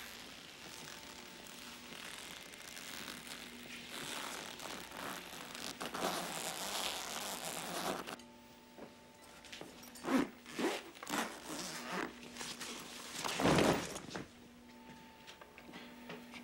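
The long zipper of a plastic body bag being drawn open: a steady rasp for about eight seconds, then a few shorter, sharper rasps and rustles of the bag, the loudest near the end.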